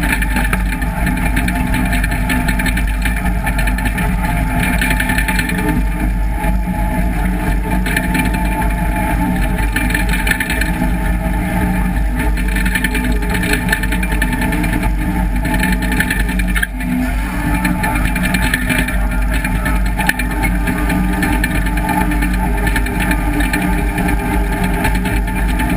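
John Deere 850J crawler dozer's diesel engine running steadily under load while the machine pushes dirt with its blade, with a brief dip in level about two-thirds of the way through.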